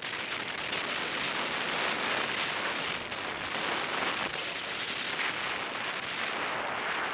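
Steady, loud rushing hiss of skis running fast through snow, mixed with wind buffeting the skier's point-of-view camera microphone.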